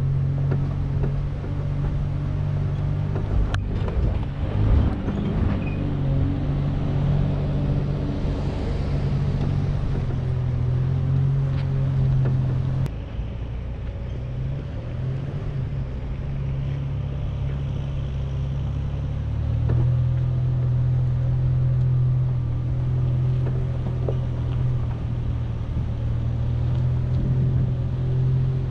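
Chevrolet Colorado ZR2 pickup's engine running at steady revs as it climbs a dirt trail. The engine note drops back about halfway through and picks up again a few seconds later. A couple of sharp knocks are heard.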